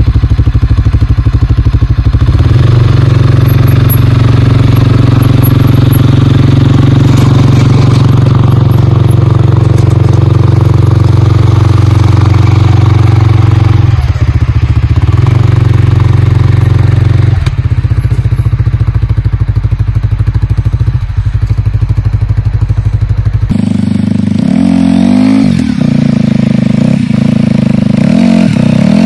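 CFMOTO CForce 450L ATV's single-cylinder engine running steadily under load while pushing a snow plow blade. About 23 seconds in, the sound changes and the engine speed rises and falls in repeated revs.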